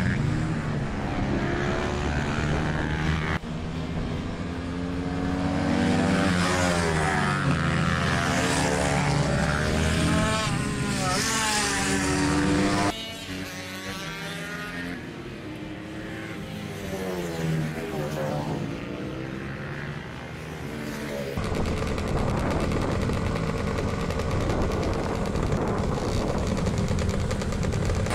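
Small mini-moto motorcycle engines revving and passing, their pitch rising and falling repeatedly. The sound changes abruptly a few times, and in the last third several bikes run together in a steadier drone.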